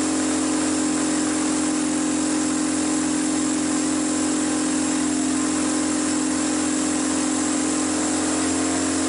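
Fire engine's motor running at a steady, constant speed, driving the pump that feeds the hose on the aerial ladder. It makes an unchanging hum under a constant hiss.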